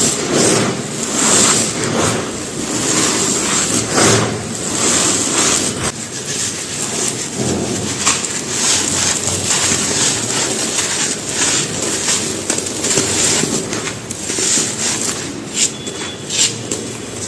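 Dry mud brick being crumbled and crushed, a continuous gritty crunching with many sharp cracks and clicks, a few stronger crunches near the start and a cluster of sharp snaps near the end.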